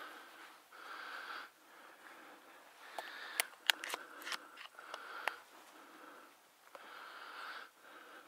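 A person's slow breathing close to the microphone, each breath about a second long and recurring every couple of seconds. Several sharp clicks come about three to five seconds in.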